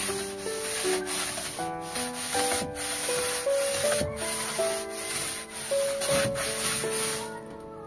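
Coconut husk (bunot) pushed back and forth by foot across a bamboo slat floor, a run of scratchy scrubbing strokes that stops near the end, with a gentle background melody underneath.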